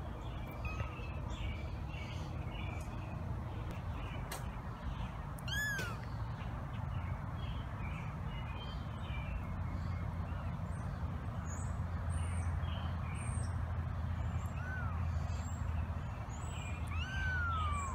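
Three-week-old kitten mewing: three short, high-pitched mews, one about five seconds in and two near the end, the last one longer and falling in pitch. A steady low rumble runs underneath.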